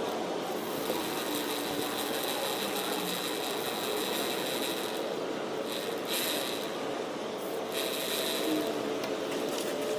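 Aerosol chain lube being sprayed onto a motorcycle drive chain: a steady hiss that breaks off briefly about five and again about seven and a half seconds in.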